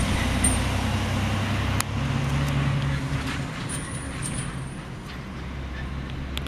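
Fire engine's diesel engine running as the truck drives off, the sound fading as it pulls away.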